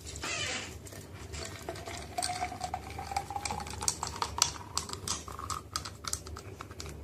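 Kitchen clatter: a quick run of small clicks and knocks, like hard items handled against dishes or a container, thickening after about two seconds, with a faint slowly rising whine underneath.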